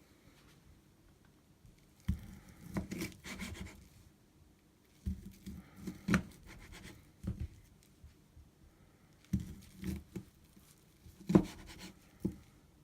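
Light knocks and rubbing from objects being handled, in irregular clusters with quiet gaps between them, and one sharper knock near the end.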